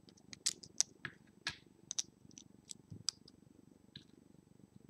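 Small LEGO plastic pieces clicking and tapping as they are picked up, handled and pressed onto a plate: a string of light, irregular clicks over a faint low rumble.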